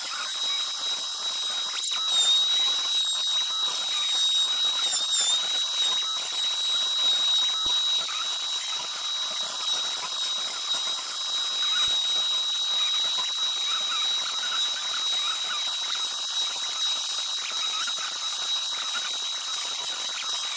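CNC router spindle running at high speed and V-carving wood: a steady high whine over the hiss of the bit cutting, the whine dipping slightly in pitch a couple of times a few seconds in as the cut loads it.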